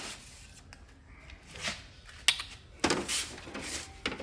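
Hands working inside an opened Xerox WorkCentre copier: a sharp plastic click about two seconds in, then scraping and rattling of parts and a screwdriver being handled.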